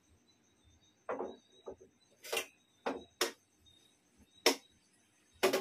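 Kitchen clatter: about seven sharp clicks and knocks, irregularly spaced, from cookware and utensils being handled and set down.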